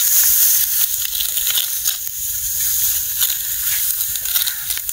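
Dry, ripe wheat stalks being cut and gathered by hand: a steady crisp rustling hiss dotted with many small crackles.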